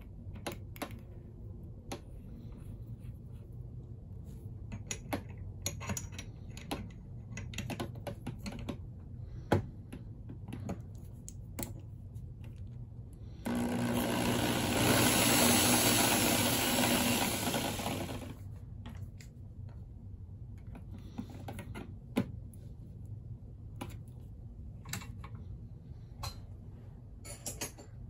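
Small metal parts clicking and tapping as a screw mandrel, washer and thin metal disc are handled and fitted in a drill chuck. Near the middle, a loud rushing noise starts suddenly and fades out over about five seconds.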